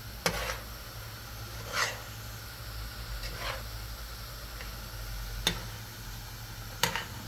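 A spoon stirring a thick spinach, chicken and tomato mixture in a cooking pot, scraping and knocking against the pot about five times, every second or two.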